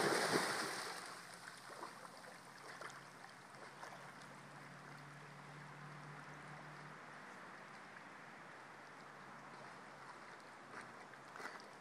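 Water splashing as a dog swims out through a creek pool, fading within about a second. Then faint, steady moving-water noise, with a faint low hum for several seconds.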